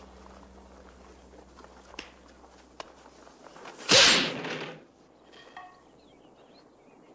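A wooden board split by a karate punch: one sharp crack about four seconds in, trailing off over most of a second.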